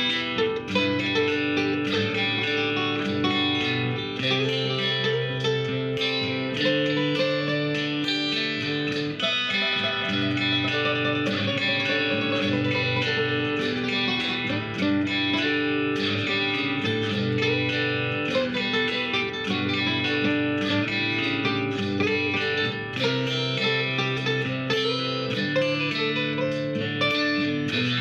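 Background music led by guitar.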